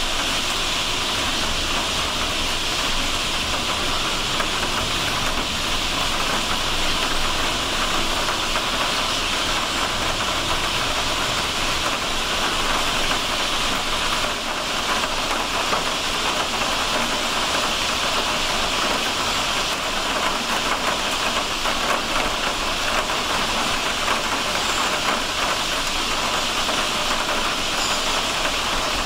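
A huge winter flock of bramblings, thousands of birds calling and moving at once, blending into a steady wash of sound in which no single call stands out.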